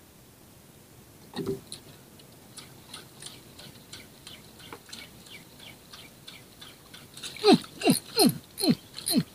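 Spinning reel being cranked while jigging a metal jig: a regular clicking about three times a second, turning near the end into a run of louder, quick falling whirs, one per turn or rod stroke.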